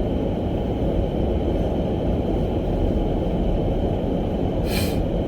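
Steady low rumble of a car driving, the road and engine noise heard from inside the cabin, with a brief hiss a little before the end.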